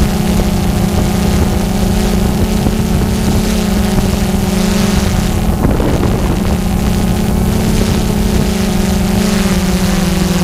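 Multirotor drone's motors and propellers humming at a steady pitch, with wind noise on the onboard camera's microphone and a brief gust of it about halfway through.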